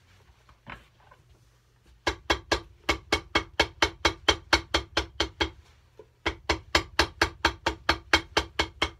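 Cobbler's hammer tapping rapidly and evenly, about five blows a second, setting a freshly glued heel lining. It goes in two runs: the first starts about two seconds in and lasts a few seconds, then after a short pause the second begins, and each blow rings briefly.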